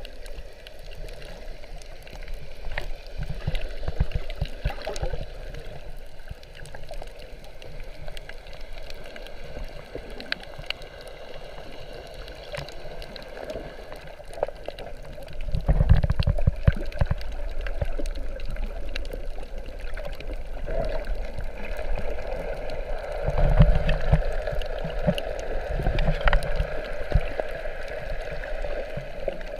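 Muffled underwater water noise heard through a GoPro held below the surface: steady sloshing and gurgling with scattered small clicks. Louder low rumbles come about halfway through and again later.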